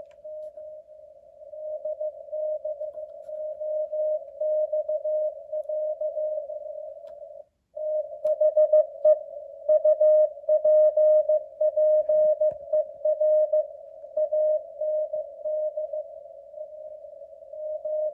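Morse code sent at 15 words per minute: a single steady tone keyed on and off in dots and dashes, inside a narrow band of hiss, from the ARRL station W1AW's code-practice transmission. The signal grows louder and softer, drops out for a moment about halfway through, and for a few seconds after that a fainter, higher keyed tone sounds along with it.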